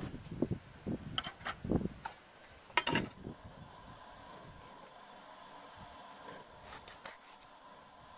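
A spoon knocking and clicking against an aluminium cooking pot a handful of times in the first three seconds, as seasoning goes in. Then a faint steady background with a thin high tone, and a few more sharp clicks about seven seconds in.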